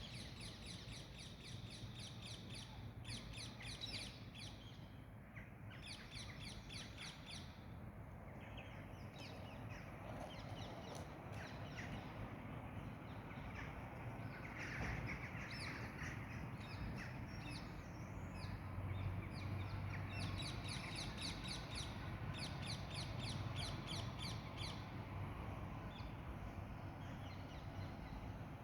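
Birds calling in repeated bouts of rapid short notes, each bout lasting a second or two, over a steady low background rumble.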